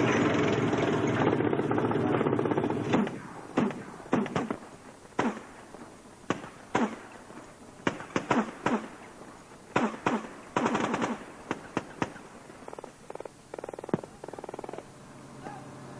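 A vehicle engine runs loudly and steadily for about three seconds. Then comes irregular gunfire through most of the rest: single shots and short rapid bursts, each trailing a brief echo.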